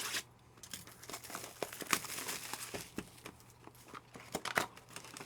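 Card-pack packaging crinkling and tearing as sealed packs of trading cards are ripped open by hand, a string of scattered short crackles.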